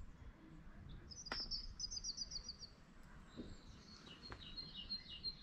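Birdsong: a quick high trill of about eight notes about a second in, then a run of repeated high notes from near the end.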